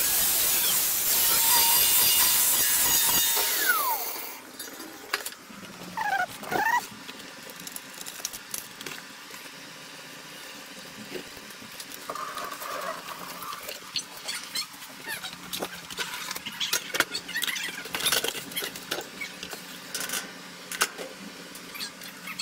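Angle grinder cutting through a plate clamped in a vice, then winding down with a falling whine about four seconds in. After that come quieter scattered clicks and knocks of parts and cables being handled.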